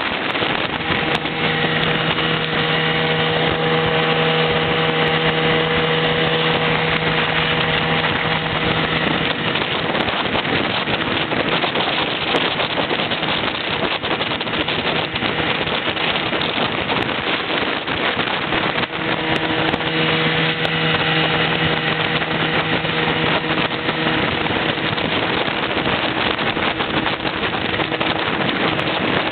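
A motor running steadily at an even speed, its engine note holding one pitch, with wind rushing over the microphone throughout.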